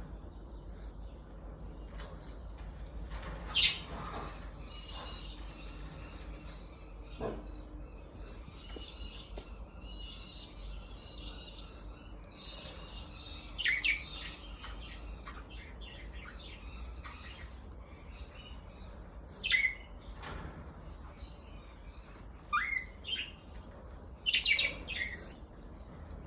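Pet budgerigars chirping and warbling in a steady chatter, with sharper, louder calls every few seconds.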